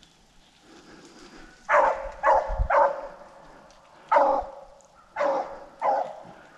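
Rabbit-hunting dogs barking on the chase of a swamp rabbit: six short, loud barks in two clusters, three close together about two seconds in and three more spread over the next two seconds.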